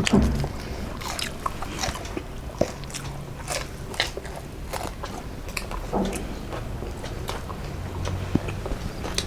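A person eating close to the microphone: chewing and biting food, with irregular crisp crunches and mouth clicks.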